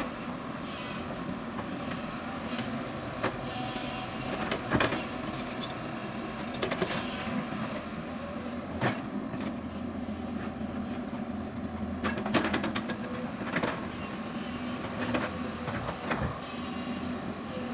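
Tracked hydraulic excavator's diesel engine running steadily under load while it digs, with irregular sharp clanks and knocks from the bucket striking soil and rock, about eight over the stretch.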